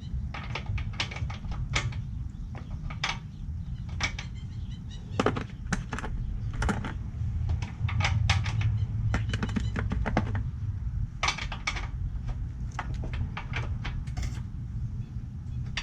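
Irregular clicks, taps and clinks of hand tools and small metal parts being handled while taking apart a 50cc scooter, over a steady low hum.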